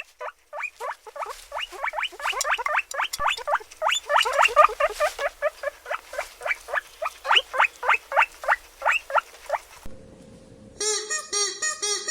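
Animal squealing: a rapid run of short, rising squeals, about three a second, stopping about ten seconds in. Near the end a different animal's repeated calls begin.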